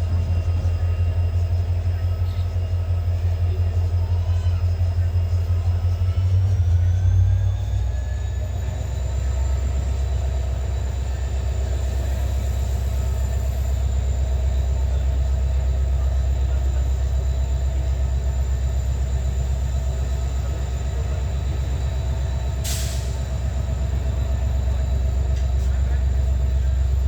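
EMD WDP-4 diesel locomotive's turbocharged two-stroke engine running with a deep, steady throb and a thin turbocharger whine. About seven seconds in, the whine rises in pitch as the engine throttles up to pull the train away. A brief hiss comes about two-thirds of the way through.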